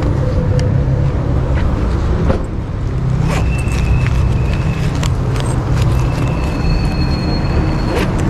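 Motor vehicle noise: a steady low rumble with a few sharp clicks. A thin high steady tone comes in twice, a little after three seconds and again at about six seconds.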